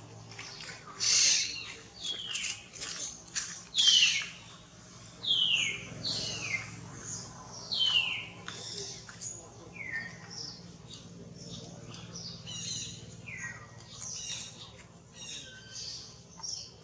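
Baby monkey crying: high-pitched calls repeated every second or two, each sliding down in pitch, with softer chirps between them.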